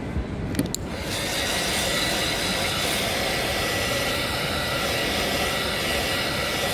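A steady mechanical whir with a high hiss and a faint steady whine, starting about a second in, after a couple of short clicks.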